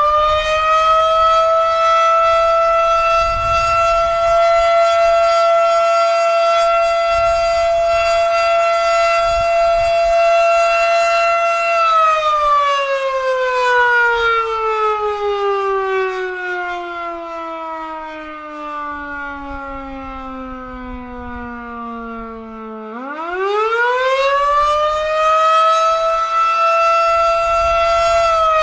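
Federal Signal Model 7 fire siren sounding the attack signal. A loud wailing tone holds steady at full pitch for about twelve seconds, then slides slowly down and fades somewhat over about ten seconds. It climbs quickly back up to full pitch, holds, and begins to fall again near the end.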